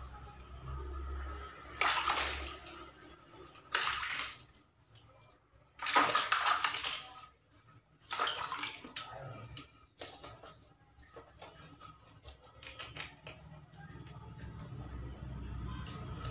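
Hands splashing and sloshing water in plastic basins while rinsing and handling small fish being cleaned, in about five separate bursts, the longest about halfway through, followed by quieter handling noise.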